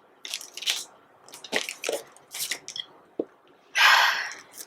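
A new phone's box and plastic wrapping being handled and opened: a series of short crinkles and clicks, then a longer, louder rustling scrape about four seconds in.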